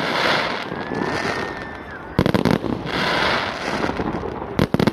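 Fireworks display: aerial shells bursting with sharp bangs about two seconds in and again near the end, each followed by a long crackling hiss of glittering stars.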